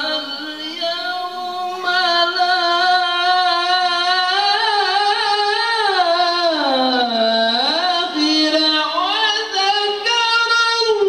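A man reciting the Quran (tilawah) in a high, ornamented melodic style into a handheld microphone: one long, continuous line of held notes with wavering runs, sinking lower about six seconds in and climbing back up near the end.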